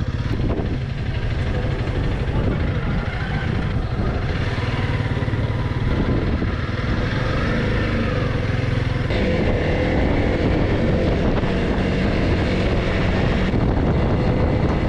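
Honda CRF300L Rally's single-cylinder engine running while riding, with a steady low rumble; the engine note changes about nine seconds in.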